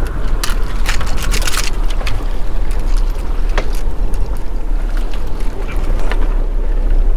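Steady wind rumble buffeting the microphone aboard a small boat, with a few sharp clicks and knocks.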